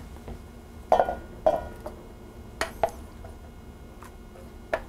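A stainless steel saucepan knocks and clinks against an enamelled cast-iron pot a few times as sauce is poured from it onto drained spaghetti. The light knocks are spread out, and one has a short metallic ring.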